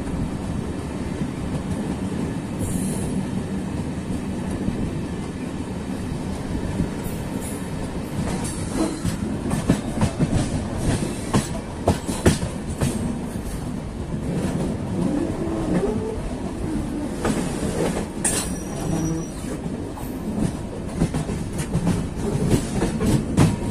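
Passenger train running on the track: a steady rumble of wheels on rails, joined from about eight seconds in by many sharp, irregular clacks as the wheels pass over rail joints and points.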